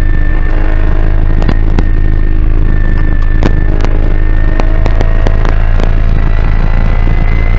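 Porsche GT4 Clubsport's flat-six engine at full throttle in sixth gear at about 6,200–6,700 rpm, heard from inside the cabin, its note climbing a little in the second half as the revs build. Irregular sharp clicks and rattles sound over it.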